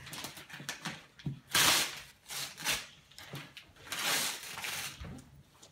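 Wrapping paper being ripped and crinkled as a child tears it off a large gift box, in several separate bursts of tearing with small crackles between, the loudest about a second and a half in.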